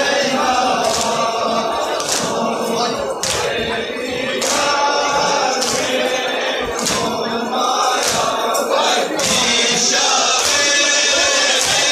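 A crowd of men chanting together in a mourning chant. Sharp strikes repeat roughly once a second, from zanjeer (bladed flagellation chains) lashing bare backs.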